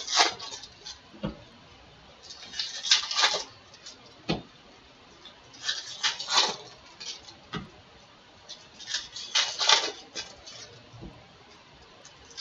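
Foil wrappers of 2017 Bowman baseball card packs crinkling as they are torn open. The crinkles come in bursts of about a second, roughly every three seconds, with soft low thuds in between.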